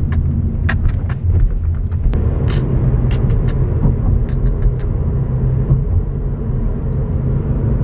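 Road noise inside a moving car's cabin: a steady low rumble, with scattered small clicks.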